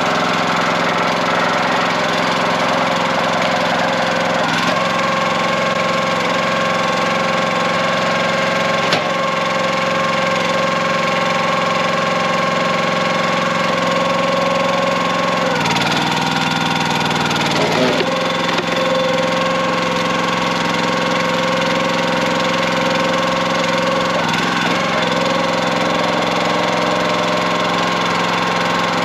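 Small gas engine of a CountyLine hydraulic log splitter running steadily. Its note shifts a few times, with a brief dip in pitch in the middle, as the hydraulic ram is worked to split a log.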